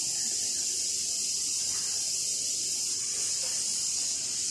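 Steady hiss of chicken curry simmering and sizzling in an uncovered pan.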